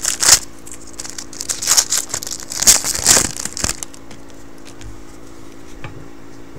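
Foil wrapper of a Topps football card pack crinkling loudly as it is torn open, in bursts over the first three and a half seconds, then only faint ticks of the cards being handled.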